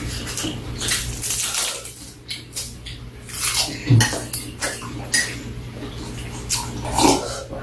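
Metal chopsticks clicking and tapping irregularly against bowls and a steel serving tray while eating, over a low steady hum.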